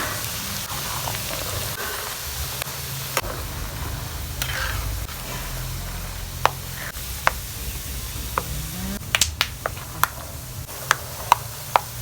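Peanuts frying in hot oil in a pan, a steady sizzle, with scattered sharp clicks from stirring that come more often near the end.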